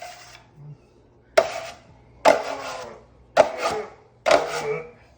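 Steel drywall taping knife scraping joint compound, four quick strokes about a second apart, each starting sharply and trailing off within half a second.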